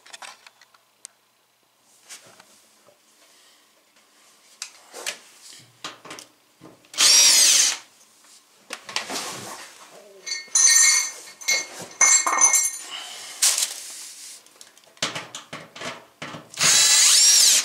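Cordless drill-driver spinning in two short runs, about seven seconds in and again near the end, driving out the screws of a washing machine's rear cover panel. Clatter of handling can be heard in between.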